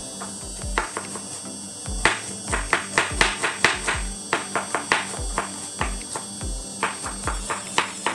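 Kitchen knife chopping an onion on a cutting board: quick sharp taps of the blade on the board, in runs of about four a second, over background music with a steady beat.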